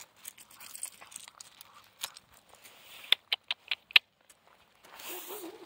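Central Asian shepherd puppies' paws crunching and clicking on loose gravel, with a quick run of sharp stone clicks about three seconds in. Near the end a puppy starts a thin, wavering whine.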